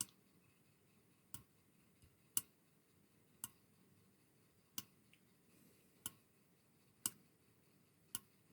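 A small tactile push button on an AT89C2051 clock kit clicking as it is pressed repeatedly, about once a second, eight sharp clicks in all, to step the clock's hours forward while setting the time.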